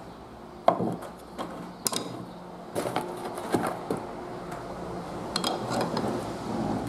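New steel-webbed drum brake shoes being handled on a wooden workbench: a series of clattering knocks as they are picked up, set down and stacked, the loudest about a second in, then softer scraping and shuffling as they are pushed together. A faint steady hum runs underneath.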